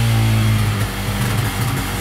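Yamaha Bear Tracker 250 quad bike's single-cylinder engine running on its rebuilt carburettor. It holds a steady note, then runs unevenly and a little quieter for the last second or so.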